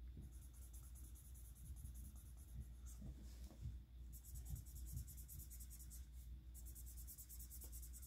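Colouring in on paper: fast back-and-forth scribbling strokes, faint, in three runs with short pauses between them and a few soft taps in the gaps.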